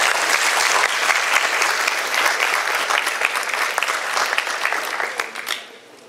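Audience applauding: dense clapping from many hands that fades out near the end.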